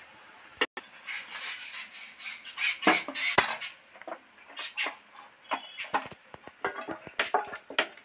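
Irregular clinks and knocks on a stainless steel plate as fried spinach pakoras are piled onto it, with a few louder knocks in the middle and near the end.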